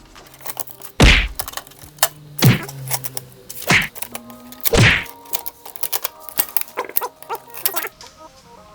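Hands working on a plastic inkjet printer while its blue packing pieces are taken off: four loud thunks in the first five seconds, then a run of small plastic clicks and taps.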